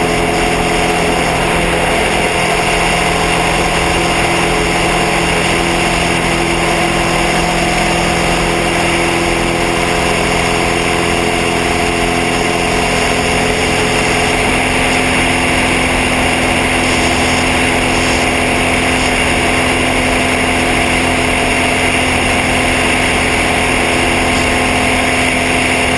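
Cessna 182's piston engine and propeller droning steadily in flight, an even, unchanging hum with no let-up.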